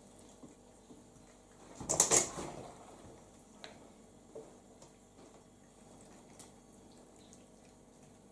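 A splash of water and wet fish as hands plunge into a metal bucket of small fish and scoop out a handful, about two seconds in, followed by a few faint wet taps and clicks as the fish are handled.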